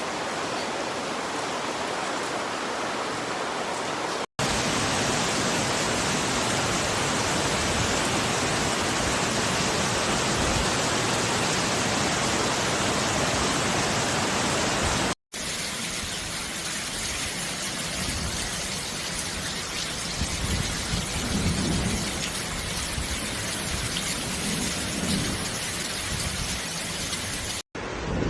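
Heavy rain falling steadily, heard in three stretches separated by abrupt cuts, the middle stretch the loudest.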